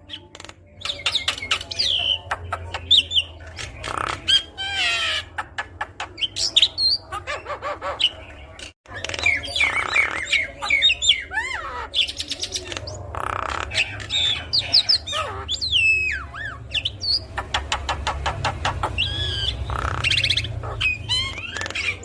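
Javan myna singing a long, varied song: whistled notes that slide up and down, mixed with harsh squawks, clicks and rapid rattling trills. It breaks off for an instant about nine seconds in.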